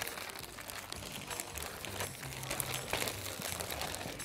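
Clear plastic wrap and disposable plastic gloves crinkling and rustling as raw chicken breasts are rubbed with a spice coating by hand, a continuous run of small crackles.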